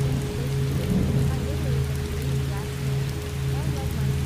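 Rain ambience layered over steady low drone tones of a theta-wave track, with faint short gliding sounds on top.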